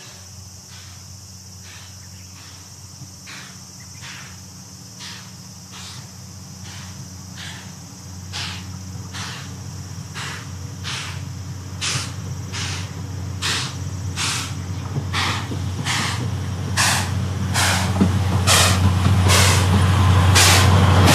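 JNR C11 tank steam locomotive working a train, its exhaust chuffing at an even beat of about one and a half chuffs a second. The chuffs grow steadily louder as it approaches, over a steady low rumble.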